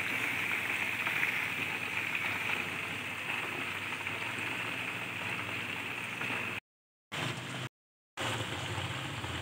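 Camel meat pieces deep-frying in hot oil, the oil sizzling with a steady crackling hiss, broken by two brief silences near the end.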